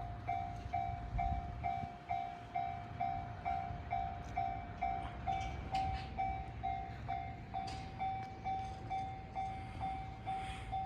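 Japanese level-crossing alarm ringing its electronic bell, an even ding about twice a second. Under it, the low rumble of the passing limited express train fades away over the first couple of seconds.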